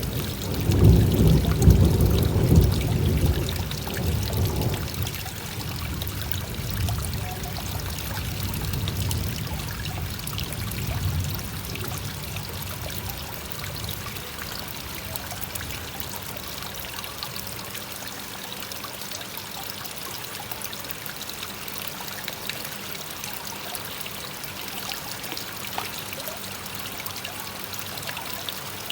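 Koi pond waterfall pouring and trickling steadily into the pond in the rain. A louder low rumble runs through the first four or five seconds, then the sound settles to an even rush.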